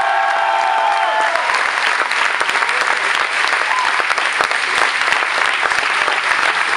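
A crowd applauding, many hands clapping in a dense, steady patter, with held cheering voices that fade out in the first second or so.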